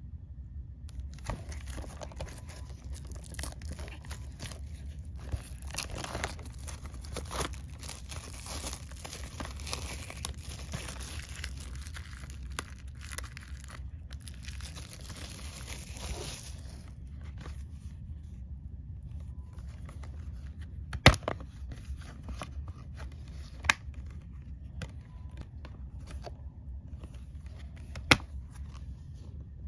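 Plastic shrink-wrap on a Blu-ray case being torn and peeled off, a dense crinkling and crackling for about the first half. After that come sparser rustles and ticks, with three sharp clicks from the plastic case being handled.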